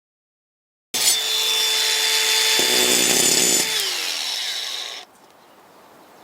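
Electric power saw starting up with a steady high whine, bogging into timber with a heavier lower note, then released and winding down with falling pitch before the sound cuts off abruptly.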